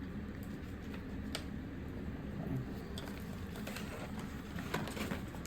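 A few light clicks and taps from small hardware being handled, over a steady low hum.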